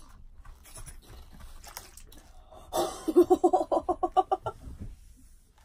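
A woman's voice, just after a long swig from a bottle: a sharp breath, then about a second and a half of rapid pulsing vocal sound.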